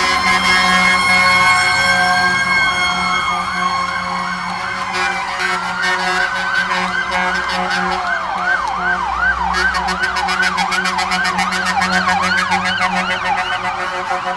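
Fire engine sirens and horns from fire trucks passing close by: steady horn tones and a slow wailing siren at first, then from about three seconds in a fast yelp siren, rising and falling over and over, with a low engine hum beneath.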